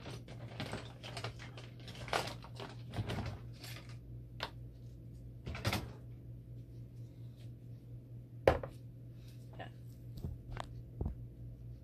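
Metal hand tools clattering and clicking as they are rummaged through in a tool drawer, with scattered knocks and one sharp click about eight and a half seconds in, over a steady low hum.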